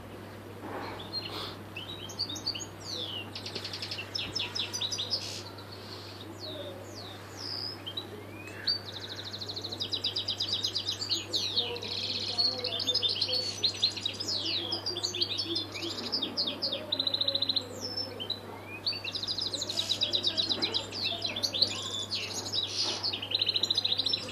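European goldfinch singing: a long run of fast twittering notes mixed with buzzy trills and rattles, growing fuller and louder from about ten seconds in.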